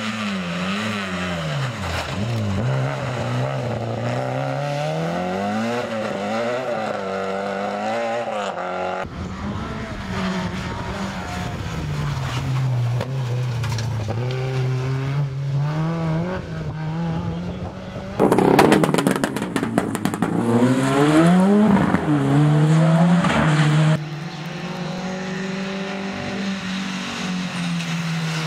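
Small front-wheel-drive rally cars, a Peugeot 106 and Renault Clios, passing one after another on a wet asphalt lane, their engines revving up and dropping back with gear changes through the corners. The loudest pass, about two-thirds through, comes with a rushing hiss.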